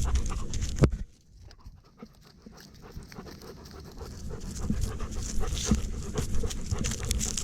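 Dog panting close to a camera worn on its body, with rustling and small knocks from the mount. The panting stops abruptly about a second in and builds back gradually over the last few seconds.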